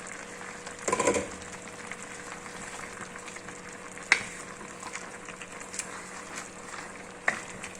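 Chicken masala simmering in a pot with a steady sizzle, a clatter about a second in, and a spoon stirring it and knocking the pot twice.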